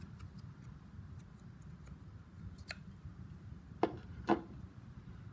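Steel axe head being worked on and off the neck of a new wooden axe handle during test-fitting: faint small clicks, then two sharp knocks about half a second apart near the end, over a steady low hum.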